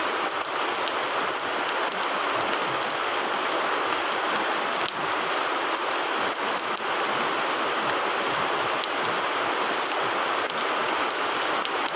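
Steady rain falling, a dense even hiss with many scattered drop ticks.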